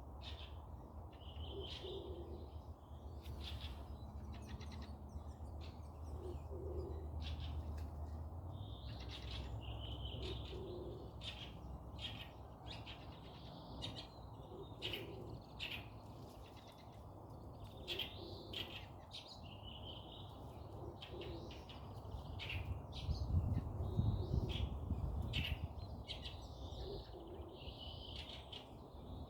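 Forest birds chirping in short high calls, with a low call repeating every few seconds, sharp clicks, and a low rumble that swells about two-thirds of the way through.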